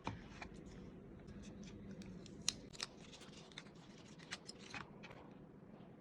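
Cardboard and paper packaging being handled while the box is opened: faint scattered clicks and crinkles, with a few sharper snaps around the middle.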